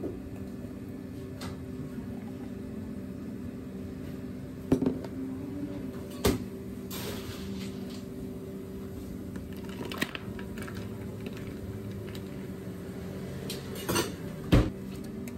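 Drink-making at a cafe counter: plastic cups and utensils knocking and clattering now and then, about five sharp knocks with the loudest near the end, over a steady low hum.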